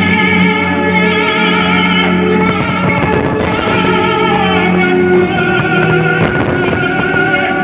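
Music with guitar-like instruments: held notes with a wavering vibrato over steady low bass notes.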